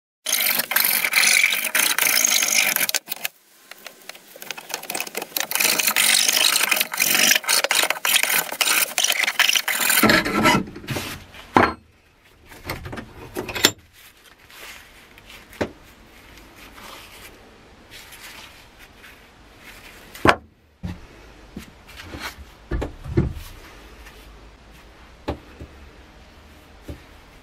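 A wood rasp worked hard across a wooden hammer-handle blank held in a vise, a dense rasping scrape that breaks off briefly about three seconds in and stops about ten seconds in. After that, quieter handling of the wood with a few sharp knocks.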